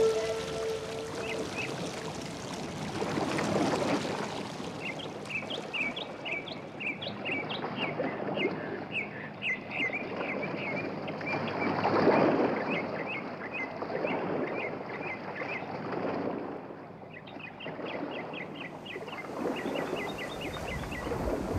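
Nature-sound passage of a background music track: many small birds chirping in quick series over a soft rushing noise that swells and fades roughly every four seconds.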